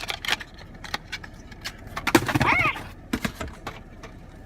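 Handling noise of packaging and small product containers being moved about: irregular clicks and rustles, with a louder rustling stretch about two seconds in.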